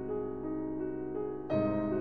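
Background piano music: soft notes moving over held chords, with a new chord struck about one and a half seconds in.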